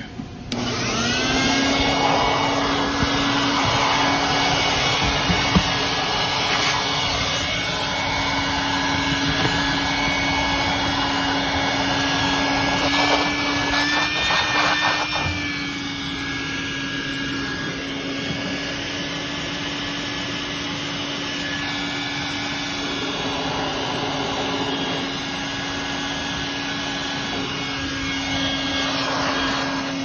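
Wet/dry shop vacuum switched on and spinning up within a second to a steady hum, sucking leftover water out of an air handler's drain pan. Its pitch rises briefly about halfway through.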